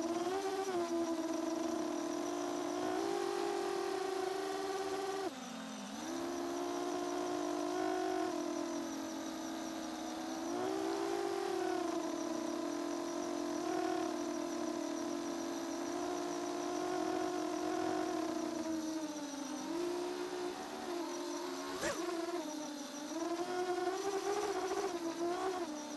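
Shendrones Squirt v2 FPV quadcopter's motors and propellers whining in flight, heard from the drone itself, the pitch rising and falling with the throttle. The whine drops briefly about five seconds in, and there is a single sharp click late on.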